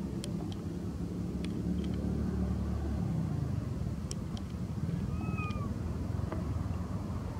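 Steady low rumble with a few faint ticks, and one short arched coo about five seconds in, from a long-tailed macaque.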